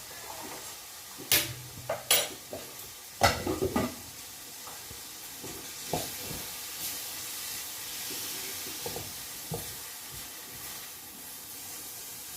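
Pieces of fish and seafood frying with onion, pepper and garlic in a pan over raised heat: a steady sizzle. A utensil knocks and scrapes against the pan several times in the first four seconds, loudest about three seconds in, with a few lighter knocks later.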